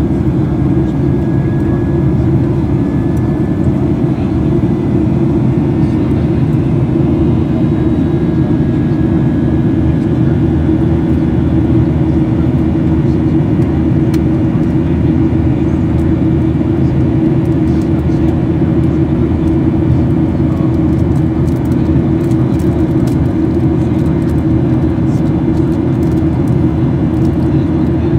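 Steady cabin noise of a Boeing 737-800 in flight, heard at a window seat over the wing: the low, even drone of its CFM56 engines and the rush of air past the fuselage.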